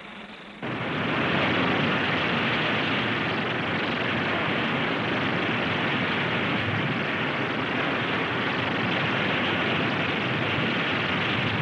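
Northrop Snark (B-62) missile launching under rocket boost with its turbojet: a loud, steady rush of noise that jumps up suddenly just under a second in and holds level as the missile climbs away.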